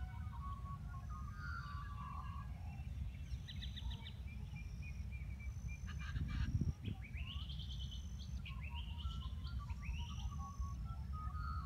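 Several songbirds singing and calling, with high whistled notes, quick trills and rising phrases. Under them is a steady low rumble, which swells briefly and louder about six and a half seconds in.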